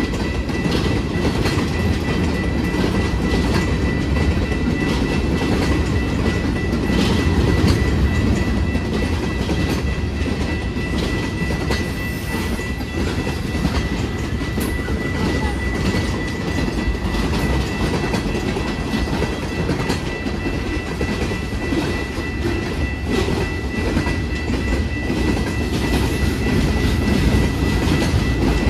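Freight train cars rolling past: a heavy, steady rumble with the wheels clicking over the rail joints. A steady high tone runs over it throughout.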